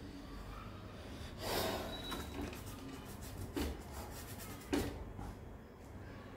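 A hand rubbing and smudging charcoal across drawing paper: a soft scrubbing swish about a second and a half in, then two short knocks, the second the loudest.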